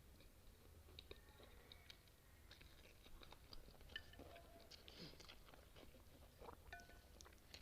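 Faint chewing of noodles and kimchi: scattered soft wet mouth clicks and small crunches, irregular and a little busier in the middle and near the end.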